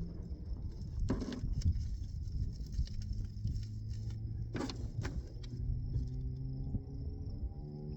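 Two sharp clicks of hand tools and small metal parts being handled during wire repair, about one second and four and a half seconds in, over a steady low rumble.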